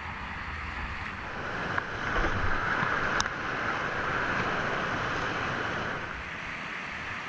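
Whitewater rushing and churning below a low river weir, heard from a microphone on a kayak's bow at water level; the rush grows louder from about two seconds in until about six seconds, as the boat moves into the foam. A single sharp click sounds about three seconds in.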